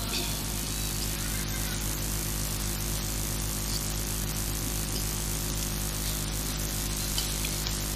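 Steady electrical buzz and hiss from a public-address sound system, with a low mains hum, in a pause between recited verses.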